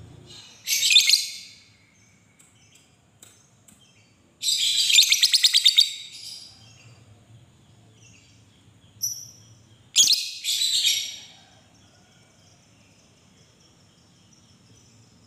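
A lovebird giving shrill, harsh chattering calls in separate bursts. There is a short burst about a second in, a longer rapid pulsing trill a third of the way through, and two more bursts about two thirds of the way through.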